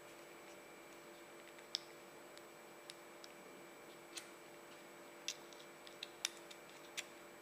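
Small sharp plastic clicks and taps as an Alcatel OT-355 phone is handled with its back cover off and a SIM card is fitted into its slot. The clicks come at uneven intervals and crowd together near the end.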